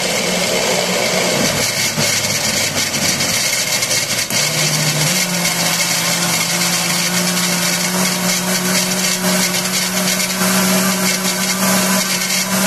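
Countertop blender running, puréeing cooked moranga squash with broth and coconut milk; it starts abruptly, and its motor pitch steps up and steadies about five seconds in as the chunks break down into a smooth purée.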